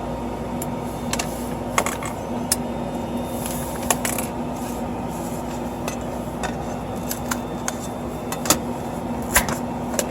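Scattered light clicks and scrapes of hard plastic and metal as a finished PLA print is popped off an Ender 3's build plate, the sharpest two near the end, over a steady hum.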